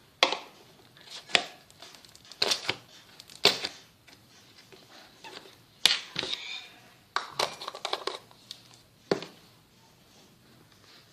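Slime being squeezed and worked by hand, giving a string of sharp, irregular pops and crackles, as in ASMR slime play.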